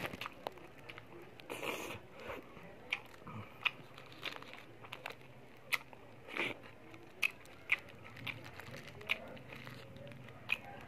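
A person biting into and chewing a shawarma wrap close to the microphone, with sharp wet mouth clicks and smacks scattered irregularly through the chewing.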